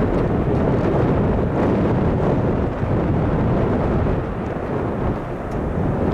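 Jet engines of an Airbus A300 freighter on its take-off roll, a loud, steady, deep rumble from the twin turbofans as the jet accelerates away down the runway.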